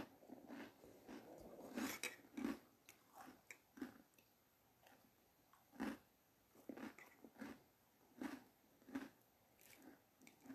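Close-up chewing and biting of bread sticks: short, irregular crunchy mouth sounds, one or two a second, with brief pauses between runs.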